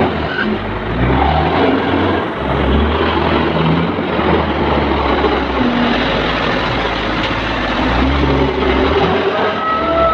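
Komatsu WA350 wheel loader's diesel engine running hard, revving up and easing off several times as the loader drives up and lifts its loaded bucket over a dump truck.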